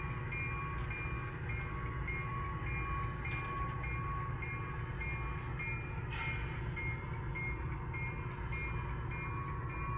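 Model railroad freight cars rolling along the track with a steady low rumble, under faint high tones that pulse on and off evenly. A brief rattle comes about six seconds in.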